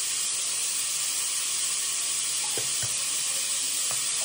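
Steady sizzling hiss of cooking on the kitchen gas stove, with a few faint taps near the end.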